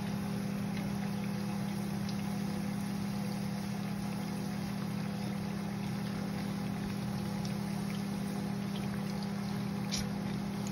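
Pakoras deep-frying in hot oil, a steady sizzle, over a steady low hum; metal tongs click once against the pan near the end.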